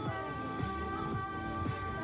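Background music with a steady beat and a long held high melody note.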